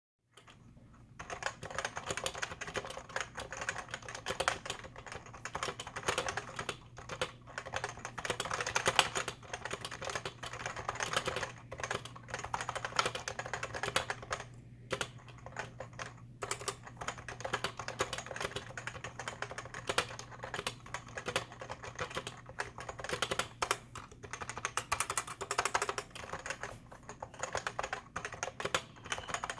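Cooler Master NovaTouch keyboard with Topre-style switches and XDA-profile Godspeed Ares keycaps, typed on fast and continuously, a dense run of keystroke clacks with brief pauses around 15 and 16 seconds in. The switches are still stock, without silencing rings.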